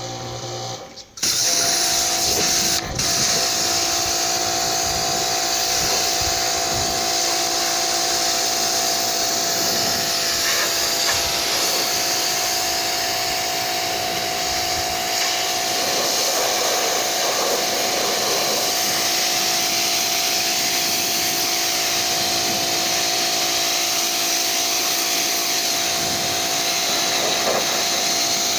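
Vacuum cleaner switched on about a second in and running steadily, a loud hiss with a steady whine, used to clean the carpet covering of subwoofer cabinets.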